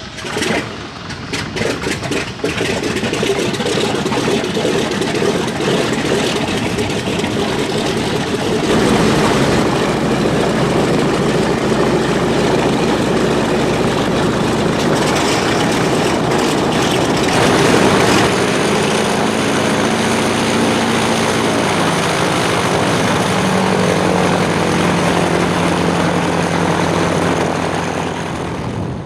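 Douglas DC-3's radial piston engines firing up with a few irregular coughs and pops, then running steadily. They get louder about nine seconds in, and their pitch rises and falls through the second half as the revs change.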